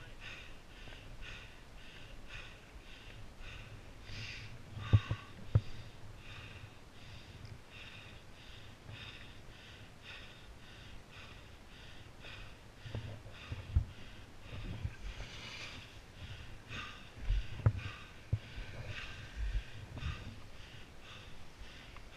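A skier's heavy, rhythmic breathing, about two breaths a second, picked up by a body-worn action camera while skiing. A few sharp low thumps break in, the loudest about five and about eighteen seconds in.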